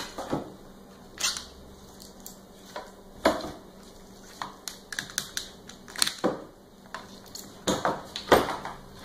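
Snap-off utility knife cutting through the small holding tabs of a CNC-milled plastic sheet: irregular sharp clicks and snaps, with a few longer scraping strokes every couple of seconds.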